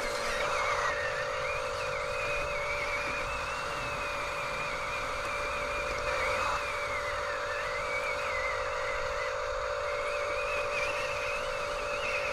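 Electric motors of a radio-controlled toy construction vehicle whirring continuously: a steady whine with a higher whine over it that wavers up and down in pitch as the load changes.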